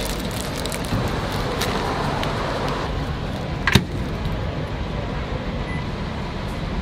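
A microwave oven built into a vending machine being loaded and set: a sharp click about three and a half seconds in as the door shuts or a key is pressed, a few lighter ticks before it, and a faint short beep near the end. A steady low rumble of background noise lies under it all.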